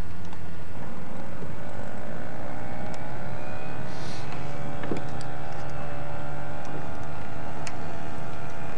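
Motorboat engine running steadily, its pitch rising about a second in and then holding.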